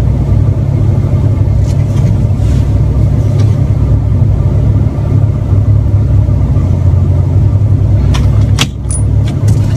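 Car cabin noise while driving slowly: a steady, loud low rumble of engine and road, with a few faint clicks near the end.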